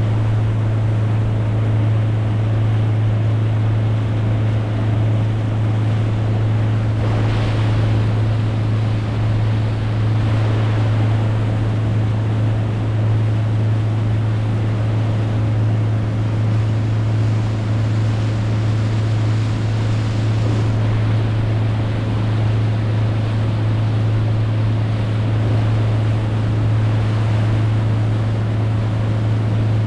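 A boat motor running steadily at one pitch, with rushing water and wind on the microphone; the rushing swells briefly twice, about seven and ten seconds in.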